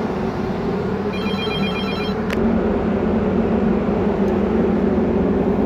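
Telephone ringing: one burst of rapidly pulsing ring tones about a second in, lasting about a second, over a steady machinery hum in the ship's engine room. A short click follows just after the ring.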